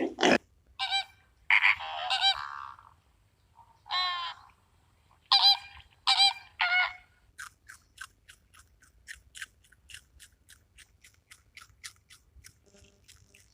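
Birds calling: a handful of harsh honking calls in the first half, then a quick run of short high calls, about three or four a second, until near the end.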